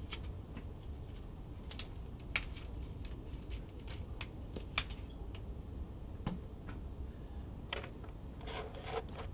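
Faint, irregular light clicks and handling rustle, about a dozen over several seconds, over a steady low hum.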